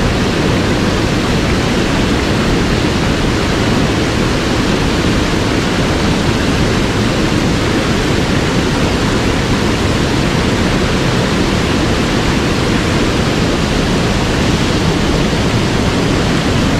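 Mountain stream running high after rain, a steady rush of water with no change.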